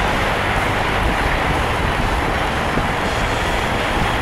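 Honda CB750's air/oil-cooled inline-four engine running steadily at cruising speed in top gear, heard from the saddle under a constant rush of wind and wet-road noise.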